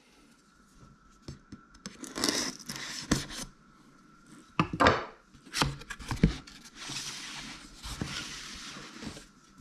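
Packaging being opened and handled by hand: a few knocks and tearing rustles, then a steadier rustle of paper or plastic near the end.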